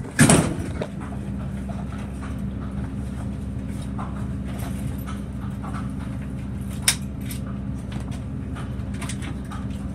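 Old Dover elevator car travelling between floors: a steady low hum with scattered light rattles and clicks. A loud thump comes about a quarter second in, and a single sharp click about seven seconds in.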